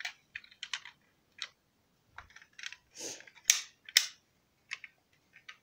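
Handling noise: irregular small clicks and taps of fingers on the phone and the plastic toy cars, with a few louder brief scraping rustles about three to four seconds in as the phone is moved.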